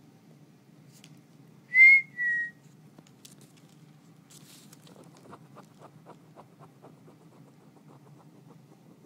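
A person whistles two short notes, the first rising slightly and the second falling slightly. From about five seconds in comes faint, even ticking at about four ticks a second.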